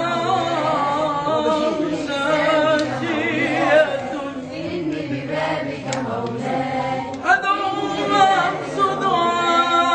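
Group of men singing an Arabic Islamic devotional chant (ibtihal) unaccompanied in Naqshbandi style, with long melismatic lines and wavering ornamented pitch.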